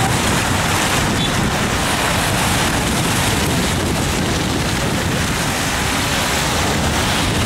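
Steady city road-traffic noise from cars driving past on a wet winter street, with a low rumble and wind buffeting the microphone.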